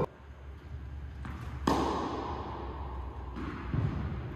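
A tennis ball is struck hard by a racket about a second and a half in, just after a lighter knock, the hit echoing through a large indoor tennis hall; a softer thud comes near the end.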